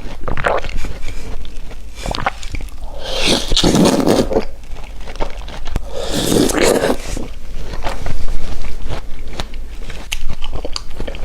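Close-miked eating: food being bitten and chewed with crunching and wet mouth noises, with two longer, louder stretches about three and six seconds in.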